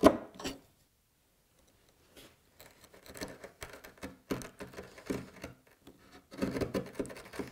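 Hand chisel paring and scraping the end grain between dovetail pins to clean them up: short, irregular scraping strokes of steel on wood. The strokes pause for a second or so near the start, then come in clusters.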